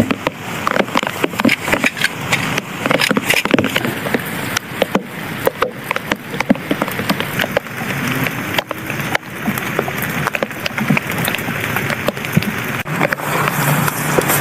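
Heavy rain falling steadily, with many irregular sharp drop taps on nearby plastic rain gear or tarp over a continuous rain hiss.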